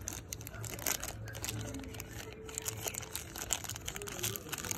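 Small clear plastic bag crinkling as fingers handle it, a dense run of quick irregular crackles.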